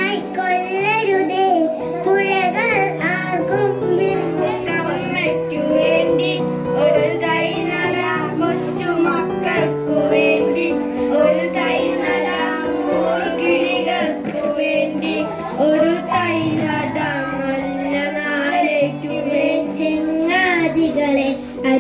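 A song sung in a child's voice over instrumental backing music with a steady melodic bass line, continuing without a break.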